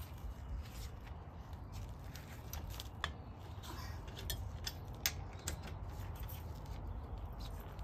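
Scattered light metallic clicks and taps from tire-changing tools being handled at the wheel, over a steady low rumble.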